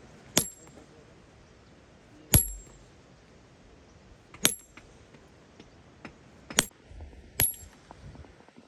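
Five sharp hammer blows, each with a short high metallic ring, spaced about two seconds apart; the second is the loudest.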